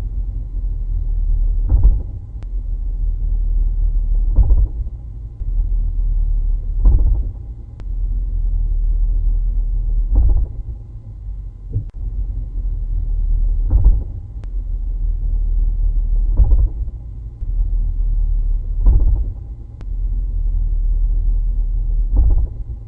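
Drivetrain of a 2016 Chevrolet SS with the six-speed manual, heard inside the cabin: a steady low rumble broken by a sharp thump about every two and a half seconds, nine in all. This is the bouncing-thumping fault noise in the driveline that developed in the car at about 200 miles.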